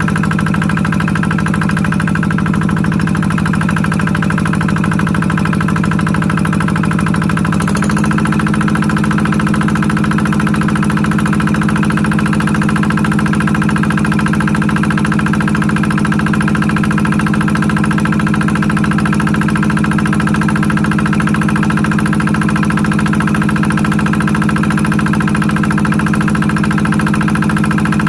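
Engine of a water pump running steadily while it pumps water into a fish pond. About eight seconds in, its note shifts slightly higher and then holds steady.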